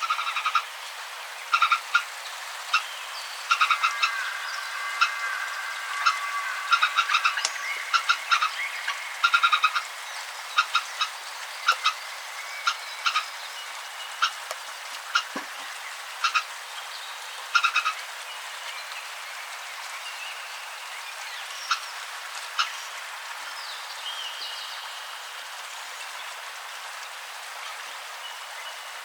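Frogs calling: short croaks repeated over and over, thick and overlapping in the first half and sparser after about 18 seconds, over a steady background hiss.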